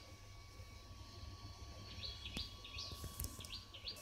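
Small birds chirping faintly, with a run of short, quick, high chirps in the second half.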